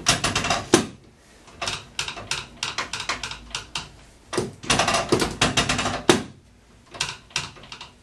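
Rapid clicking creaks in four bursts of a second or so each, from hands pressing and rocking a patient's lower back on a chiropractic treatment table.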